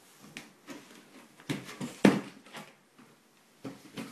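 Cardboard box and plastic carry case being handled: a run of scrapes and knocks, the loudest a sharp knock about two seconds in.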